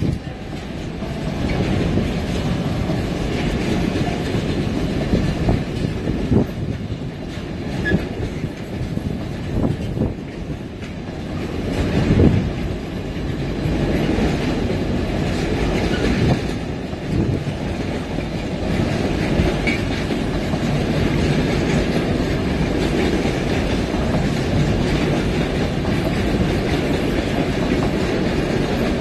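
Container freight train's loaded flat wagons rolling past, a steady rumble with irregular wheel knocks and clatter over the rail joints, swelling louder about twelve seconds in.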